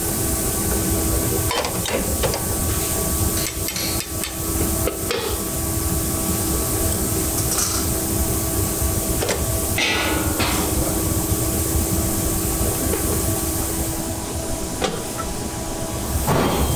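Foundry workshop noise: a steady machine hum with a few sharp metallic knocks scattered through it, one about ten seconds in and another near the end.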